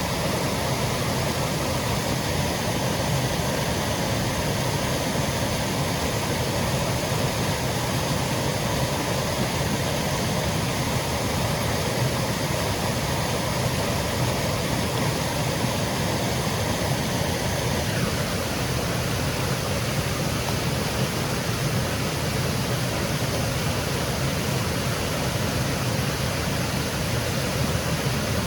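Small woodland waterfall cascading over rocks: a steady, unbroken rush of falling water.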